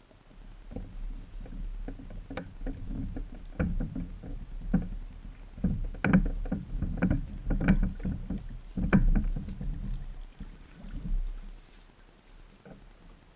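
Footsteps thudding on the plywood deck of a small home-built catamaran, about one heavy step a second, with the floating deck knocking and booming under the weight. The steps are loudest in the middle and fade as the walker moves away.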